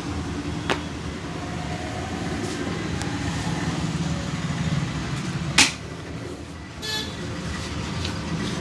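Steady rumble of street traffic, with a faint click under a second in and one loud, sharp smack about five and a half seconds in, followed about a second later by a brief high toot.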